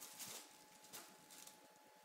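Faint crinkling of a thin plastic bag in a few short bursts as kittens paw and bite at it.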